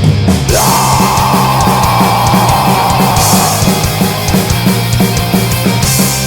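Heavy rock music with a full band and a steady drum beat. About half a second in, a high note slides up and is held for about three seconds.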